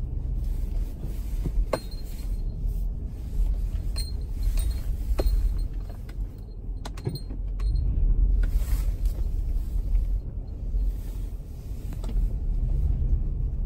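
Storm wind buffeting the microphone: a low, uneven rumble that swells in gusts, with a few sharp clicks mixed in.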